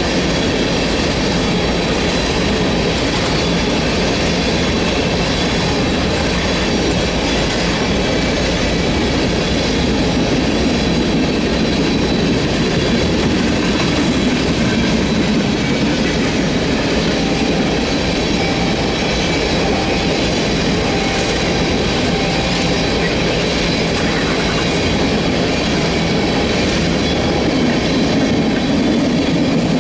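A freight train of empty tank cars rolling past steadily, its steel wheels running on the rails.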